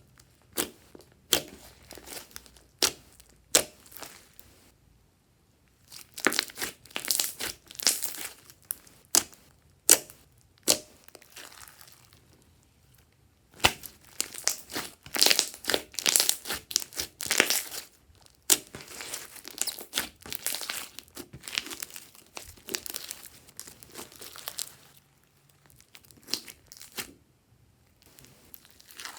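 Glossy slime being worked by hand: sticky crackling and popping in irregular runs, with short pauses between handfuls.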